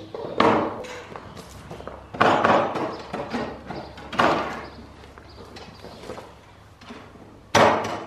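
Wooden boards and a metal trestle frame knocking and clattering as they are put together into a table, in four loud bouts; the second is a longer run of knocks, and the last comes near the end.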